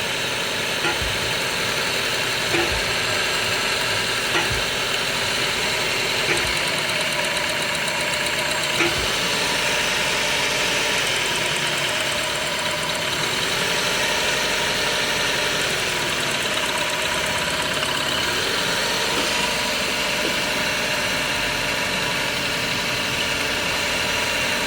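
Toyota Passo engine idling roughly, with an irregular thump every second or two in the first half. This is the stumble of a misfire, traced to a faulty ignition coil.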